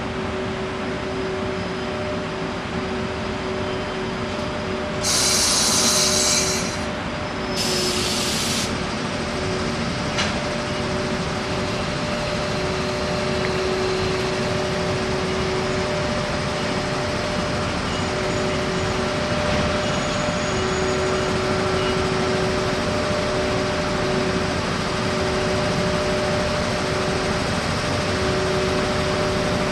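EF81 electric locomotive hauling a container freight train, pulling slowly into the station: a steady hum with two fixed tones and a noisy wash under it. Two short, loud hisses come about five and seven seconds in.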